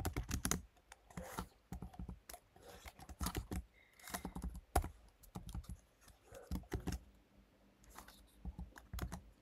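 Typing on a computer keyboard: quick, irregular clusters of key clicks with short pauses between them.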